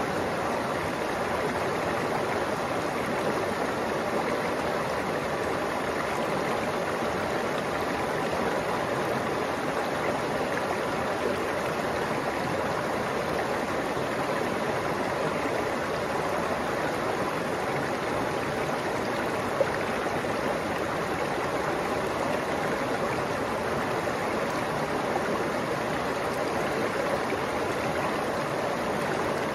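Shallow mountain stream flowing over a bed of rocks and pebbles: a steady rush and babble of water.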